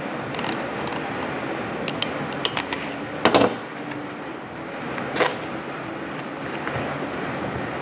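Hands opening a small cardboard toy box: a box cutter slitting the seal, then cardboard flaps and plastic packaging being handled, as scattered clicks and scrapes over a steady background hiss. A louder clack comes about three seconds in, and another near five seconds.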